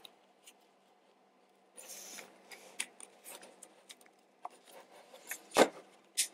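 Light handling sounds of a magwell being fitted onto an airsoft Glock frame: a brief scrape and scattered small clicks, with one sharper knock about five and a half seconds in.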